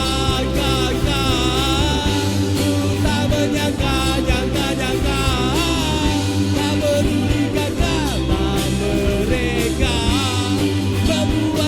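A rock band playing a song with a lead singer over guitars, bass and drums.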